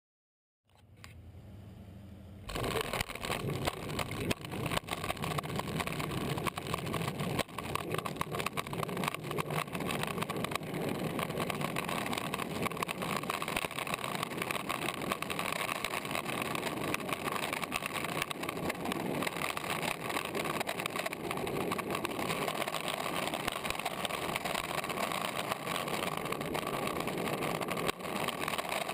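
Longboard wheels rolling fast down an asphalt street, picked up by a camera mounted on the board's nose: a steady, rough rolling noise that starts faintly and turns loud about two and a half seconds in.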